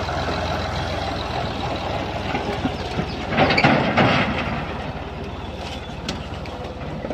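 Ford 4000 tractor engine running under load as it pulls a loaded log trailer, with a louder, rougher stretch about halfway through, then fading as the tractor moves off.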